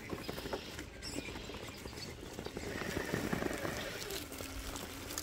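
Tyres of a 1/10-scale Traxxas TRX4 RC rock crawler scrabbling for grip on rock and loose gravel as it tries to climb a steep face, with many small clicks and crunches of stones.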